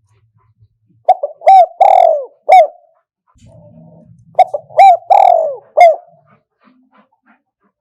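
Spotted dove cooing: two phrases of short coos, each with one longer drawn-out falling note near its end, the first about a second in and the second about four and a half seconds in. It is a decoy dove's call of the kind played to lure wild spotted doves into a trap.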